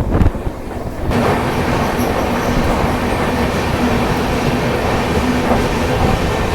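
Hirakhand Express passenger train running on the rails, heard from aboard: the wheel and carriage noise jumps sharply louder about a second in and stays loud, with a steady low hum running through it.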